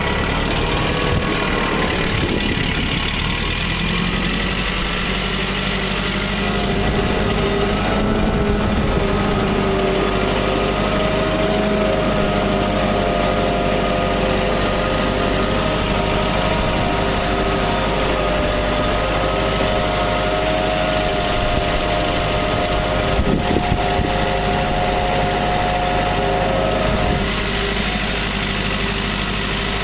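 International Harvester 454 tractor engine running steadily under load while pulling a trailer heaped with dirt, its pitch lifting slightly a few seconds in.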